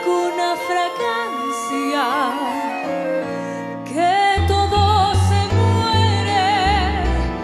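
Song: a singer holding long notes with vibrato over instrumental accompaniment. A deep bass part comes in about four seconds in.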